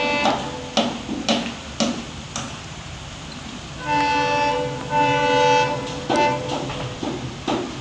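Diesel locomotive horn sounding two long multi-tone blasts about four seconds in, over the low rumble of the approaching train. Sharp ticks recur about twice a second before the horn.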